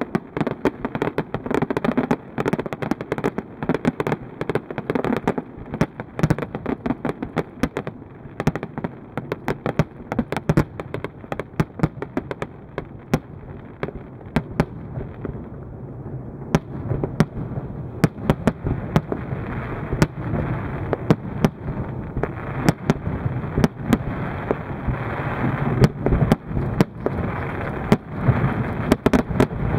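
Aerial fireworks display: shells bursting in rapid succession, many sharp bangs a second over a low rumble. The bursts thin out briefly about halfway through, then come denser and louder toward the end.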